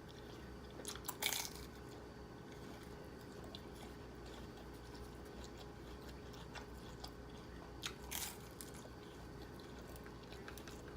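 Crisp fried pork lumpia bitten and chewed close to the microphone: a loud crunch about a second in and another near eight seconds, with faint chewing clicks between.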